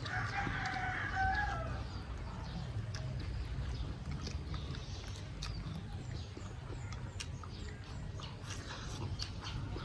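A rooster crows once at the start, a single call of about two seconds, over a steady low rumble.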